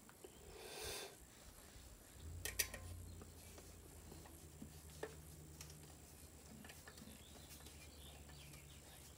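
Faint handling noises of screwing a hard drive into a PC drive cage: a soft swish about a second in, then a few sharp metallic clicks from the screwdriver and screws, loudest around two and a half seconds in, with a low steady hum underneath from about two seconds on.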